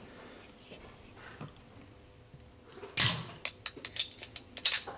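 Near-quiet handling, then about three seconds in a loud rustle followed by a quick run of sharp clicks and knocks, roughly five a second, ending with another rustle near the end.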